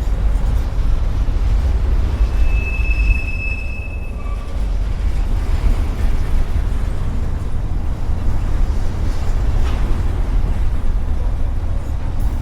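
Freight train rolling past on the track: a steady low rumble, with one high wheel squeal lasting under two seconds about two seconds in.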